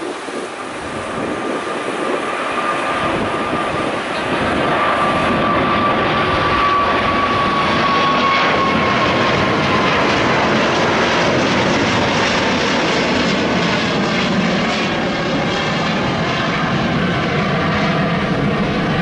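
Airbus A350 airliner's Rolls-Royce Trent XWB turbofans running at takeoff power as it climbs out past: a rushing jet noise that grows louder over the first few seconds and then holds steady. A whine in the engine noise slowly drops in pitch through the first half as the jet goes by.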